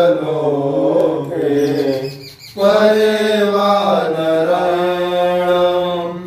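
A man's voice chanting mantras in a Rudrabhishek, the ritual bathing of a Shiva lingam, in long held notes, with one pause for breath about two and a half seconds in.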